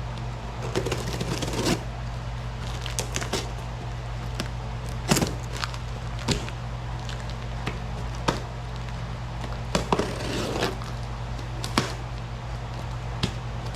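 Scattered knocks, clicks and rustling from steel power rack parts being handled and fitted together during assembly, about ten separate hits spread over the stretch, over a steady low hum.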